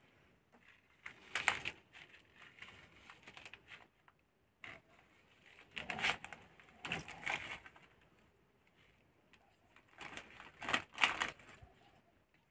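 Plastic spice packet crinkling in a few short bursts as it is handled and opened by hand.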